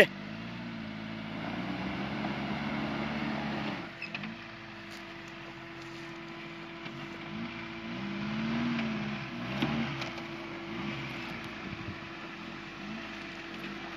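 A small four-wheel-drive off-roader's engine running under load on a steep dirt slope. It revs up twice, about a second and a half in and again about eight seconds in, and eases back between.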